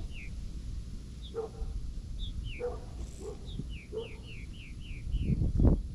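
A dog barks in short calls about once a second while a bird calls in quick falling chirps, with a run of six in a row past the middle. A low rumble runs underneath and swells loudest near the end.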